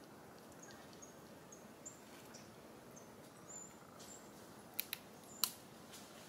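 Faint background hiss with a few short high chirps, then three sharp clicks about five seconds in: dry twigs and leaf litter crackling as a baby macaque crawls and walks over them.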